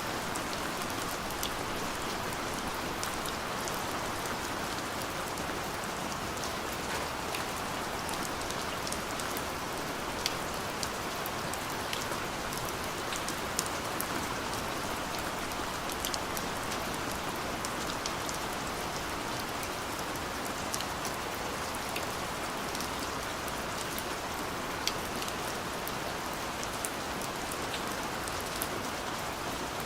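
Steady rain falling, an even hiss with many individual drops ticking sharply on a hard surface.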